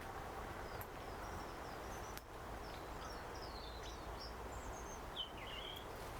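Small birds chirping in short high twitters over steady outdoor background noise, with a lower falling call about five seconds in.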